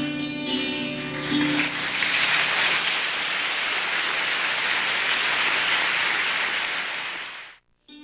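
The last struck santoor notes ring over a tanpura drone and die away. About a second and a half in, audience applause takes over for roughly six seconds and cuts off abruptly near the end.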